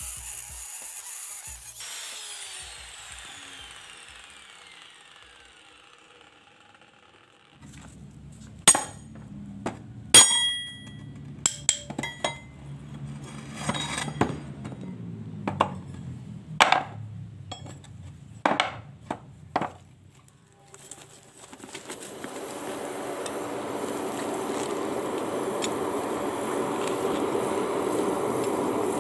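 Metalworking sounds. A power tool winds down with a falling whine. Then comes a series of sharp metal clinks and knocks over a low hum, a few of them ringing. Near the end a steady motor noise builds up and keeps running.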